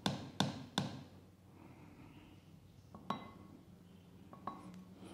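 Metal spoon knocking against a small steel bowl while sugar is spooned into the chopper jar: three quick clinks at the start, about half a second apart, then a single clink about three seconds in and a faint one near the end.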